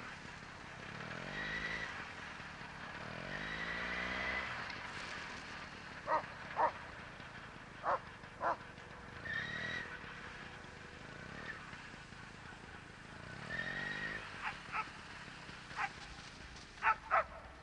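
Excited coursing dogs yelping in short, sharp barks, often two in quick succession, starting about six seconds in and growing more frequent near the end. Between them a motor whines up and down in short spells.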